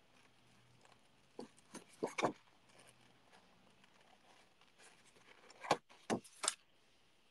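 Paper and card being handled on a craft desk: a few short rustles and taps in two groups, about two seconds in and again around six seconds.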